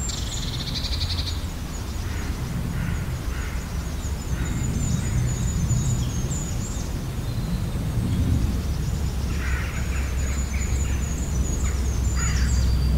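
Countryside woodland ambience: several birds calling now and then, with runs of high, thin chirps, over a steady low rumble.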